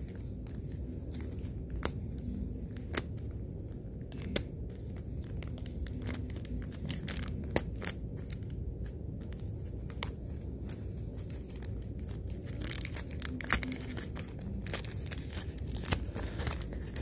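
Toy packaging being torn open and crinkled by hand, with scattered sharp clicks and rustles. The handling gets busier in the last few seconds.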